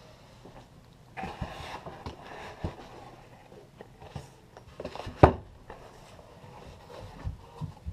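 Handling of an opened shipping box: plastic packing bags rustling, scattered light clicks and taps, and one sharp knock a little past five seconds in.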